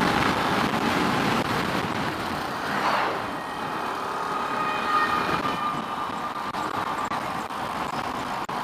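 A Keeway RKS 100cc motorcycle under way on the road: steady riding noise with a rushing wash over it, and a faint steady high whine from about three seconds in.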